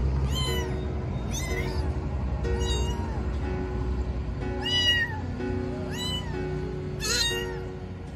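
Tortoiseshell kitten meowing loudly and repeatedly: about six high meows, each rising and then falling in pitch, a second or so apart. Soft background music plays underneath.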